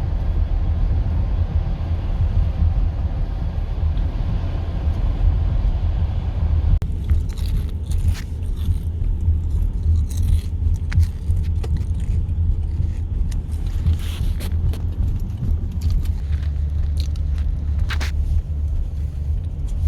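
Low, steady rumble heard from inside a car, with a hiss that drops away about seven seconds in, followed by scattered light clicks and taps.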